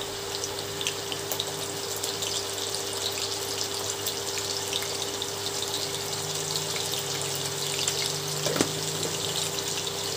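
Cubed potatoes frying in hot mustard oil: a steady sizzle with small scattered crackles, over a steady low hum.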